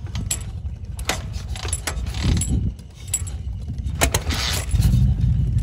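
Old Harley-Davidson chopper being kick-started: sharp metallic clanks from the kick-start lever and the engine turning over in uneven low thumps, a hard start. Near the end a louder, steadier low rumble sets in.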